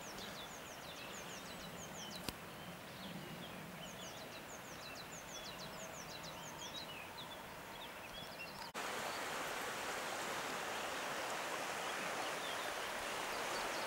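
Small birds singing in quick, high, repeated chirps over quiet open-air ambience. About nine seconds in, the sound cuts abruptly to a louder, steady rushing hiss.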